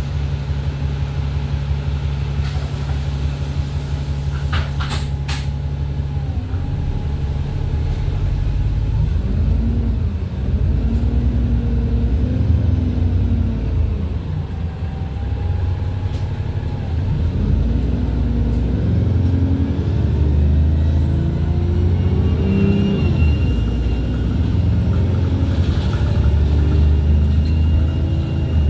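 Single-deck bus heard from inside the cabin: the diesel engine idles, with a short hiss of released air about three to five seconds in, then the bus pulls away, the engine note rising and dropping back several times as it changes gear.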